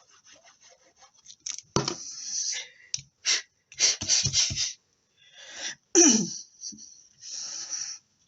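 A woman sneezing in a run of sharp, breathy bursts; the loudest, about six seconds in, ends in a voiced sound falling in pitch. Faint small scratches of paper handling come first.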